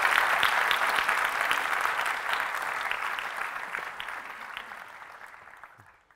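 Conference audience applauding: a dense patter of clapping that holds for a few seconds, then fades out over the last two seconds.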